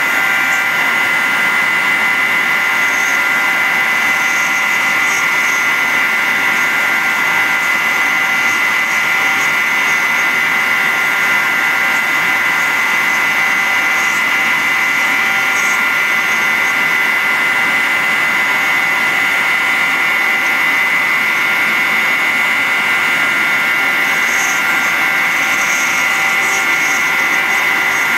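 CNC router spindle running at a steady high whine while the bit mills a pocket in sheet stock, level and pitch unchanging throughout.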